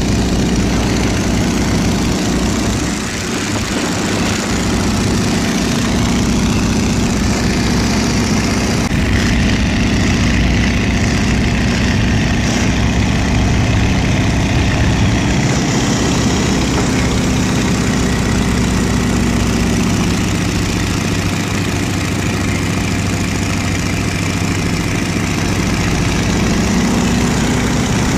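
Boeing Stearman biplane's radial engine and propeller running steadily in cruise flight, heard from the open cockpit with heavy wind noise over it.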